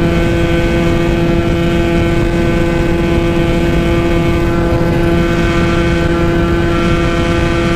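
Yamaha RX-King's 135cc two-stroke single-cylinder engine running at steady high revs under way, one unchanging note through the whole stretch.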